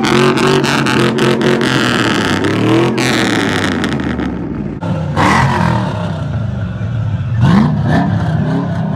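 Truck engines running and revving, with a rapid run of sharp cracks over the first three seconds and a rev rising in pitch near the end.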